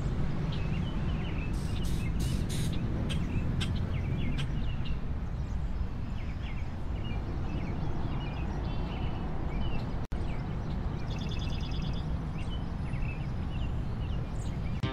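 Outdoor ambience: birds chirping over a steady low rumble, with a few short sharp sounds about two seconds in.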